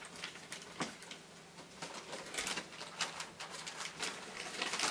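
Gift wrapping paper rustling and crinkling as presents are unwrapped, an irregular run of short crackles.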